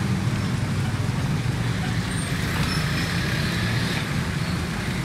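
Steady low rumble of road traffic, unbroken throughout.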